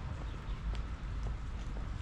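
Footsteps of a walker on a wet path, about two steps a second, over a steady low rumble.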